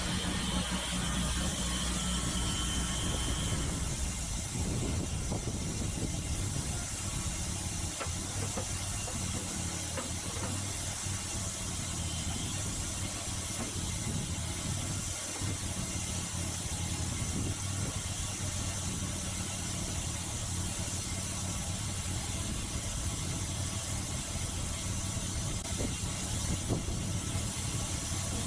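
Gasoline engine of a Norwood Lumbermate Mark IV bandsaw mill head running steadily.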